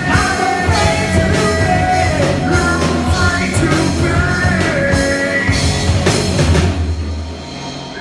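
Rock band playing with a singer holding long sung notes over heavy bass; the music thins out and drops in level about seven seconds in, near the song's end.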